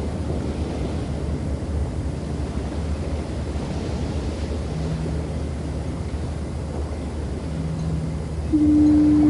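Steady low rumble of surf and wind at a beach, with two faint, lower horn notes midway. Near the end a loud foghorn blast starts, one steady held tone.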